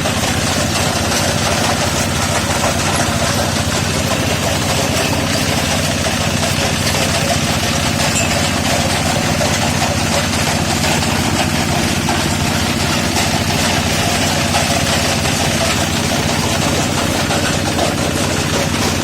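A motor-driven machine running steadily at one constant speed, with a low, even hum.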